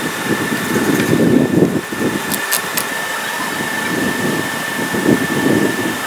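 An engine running at idle, with a steady high whine over a low, uneven rumble. Three quick sharp ticks come about two and a half seconds in.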